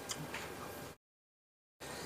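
Faint clicks and crackles of crisp fried tilapia being pulled apart by hand, over a steady low hiss. About halfway through, the sound cuts out completely for almost a second.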